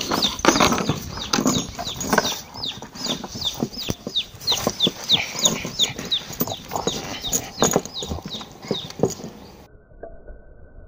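A small bird chirping over and over, short high chirps about three a second, with scattered knocks and scrapes as a dog carries and gnaws a large overripe cucumber on wooden boards. The sound cuts off suddenly near the end.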